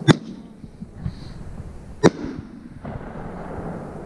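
Aerial fireworks bursting overhead: two sharp booms about two seconds apart, each trailing off in an echo, with a fainter thump between them.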